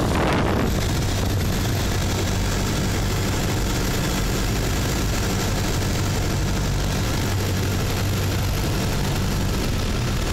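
Single-engine light aircraft's piston engine and propeller running steadily on final approach to landing, heard from inside the cockpit as a low hum under a haze of air noise. A louder rush of air at the start fades within the first second.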